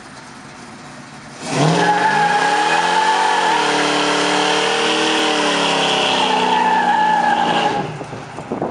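Chevelle SS V8 engine revving hard in a burnout, its rear tyres screeching in a steady high squeal. The engine note climbs, dips, then holds while the tyres spin; it starts about a second and a half in and dies away near the end.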